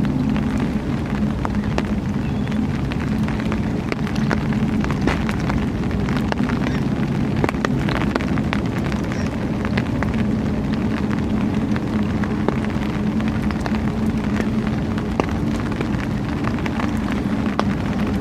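A steady low motor hum under a continuous crackling noise; one tone of the hum drops out about seven seconds in.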